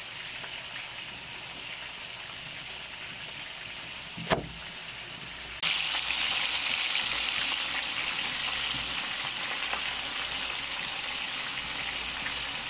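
Food sizzling steadily in hot oil. A single sharp click comes a little past four seconds in, and about a second later the sizzle turns suddenly louder and stays that way.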